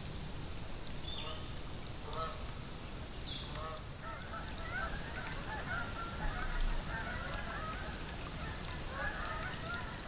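A flock of geese honking: a few scattered calls at first, then many overlapping honks from about four seconds in.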